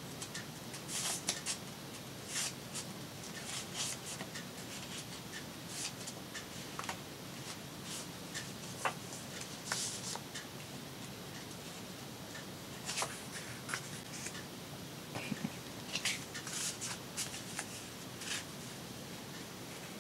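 Hands handling and smoothing a sheet of decorative paper: intermittent short rustles and rubbing strokes as it is laid and pressed down onto a journal page.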